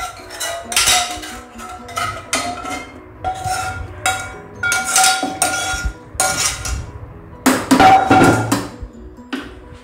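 A metal spoon scraping and knocking against a metal kadai, tipping its masala into a steel pot. The kadai rings after each knock, and the hits come irregularly, loudest and most crowded about eight seconds in.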